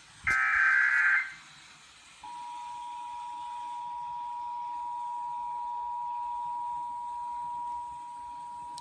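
Emergency Alert System test tones: first a loud data burst of about a second, the last of the digital SAME header bursts. About two seconds in comes the steady two-tone attention signal, which holds to the end.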